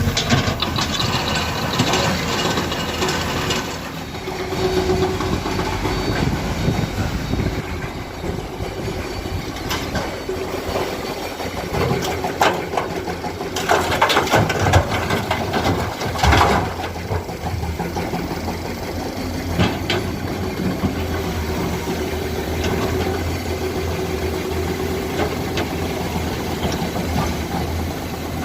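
Komatsu PC200 excavator's diesel engine running steadily while it loads broken stone, with bursts of clatter and clanks from the stone and bucket, the loudest around the middle.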